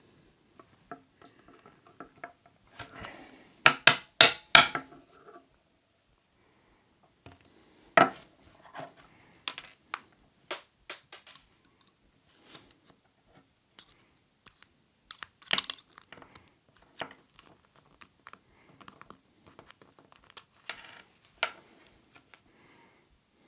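Small plastic and metal parts of a radio-controlled car clicking and rattling as the wheel hub area is taken apart by hand. There is a quick cluster of sharp clicks about four seconds in, and single louder knocks at about eight and fifteen seconds.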